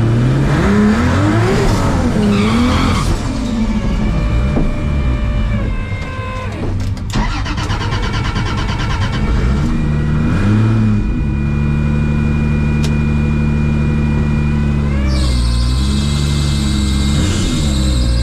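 Turbocharged drag car engine heard from inside the cabin, revving up and down for the first few seconds, then holding a steady note, with short dips and rises near the end. The car had dropped into limp mode: the driver could not get it onto the trans brake, and it ran popping and sputtering.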